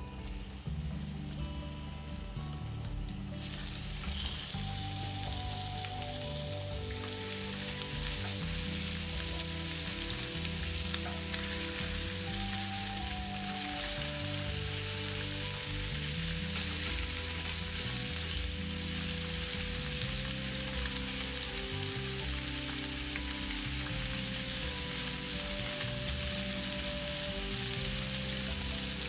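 Food frying in a hot pan, a steady sizzle that grows louder over the first several seconds and then holds.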